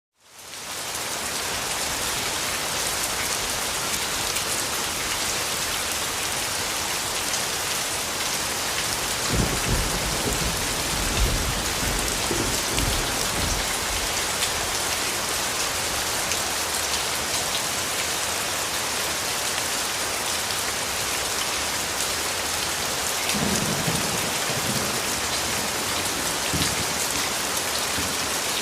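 Steady rain falling hard, fading in over the first second, with low thunder rumbling twice: about nine seconds in and again near the end.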